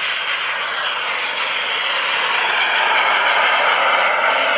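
FLS Microjet (Bede BD-5J) single turbojet at takeoff power as the tiny jet flies low past and climbs away: a loud, rushing jet noise with a whine that slides down in pitch as it goes by.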